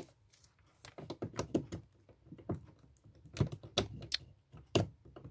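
Irregular clicks and light knocks from a heat gun and its cord being handled and set down on a craft table, with a few louder knocks a few seconds in.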